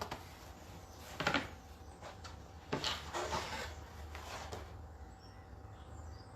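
Handling noises of wooden chalk-art surfaces and packaging being moved and stacked on a desk: three short bursts of scraping and knocking, about a second, three seconds and four and a half seconds in.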